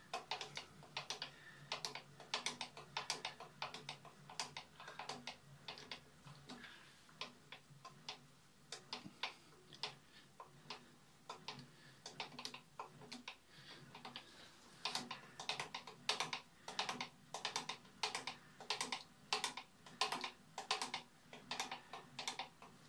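Faint, light clicks and ticks, irregular at first and settling to about two a second in the second half.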